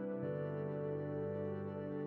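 Soft new-age background music with sustained chords, shifting to a new chord shortly after the start.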